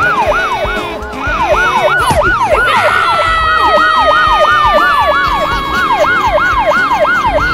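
Police siren in a fast yelp, its pitch sweeping up and down about four times a second. About three seconds in, a second siren tone joins it, falling slowly.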